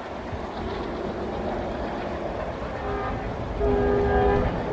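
Horn of an approaching train's locomotive sounding as a chord of several steady notes: a short toot about three seconds in, then a longer, louder blast. A low rumble runs underneath.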